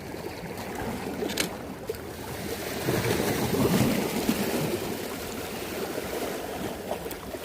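Sea water washing against the shore, a steady rush that swells and eases, with a couple of faint clicks.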